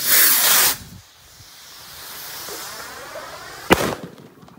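Firework rockets strapped to a foam toy plane ignite with a loud hissing whoosh lasting under a second, followed by a fainter rushing hiss that swells as the rocket flies off. About three-quarters of the way through, the rocket's charge goes off with a single sharp bang.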